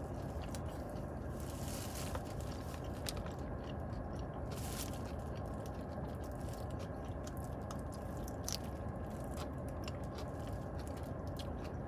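Close-up chewing of crunchy salad, with a few sharper crunches spread through, over a steady low background hum.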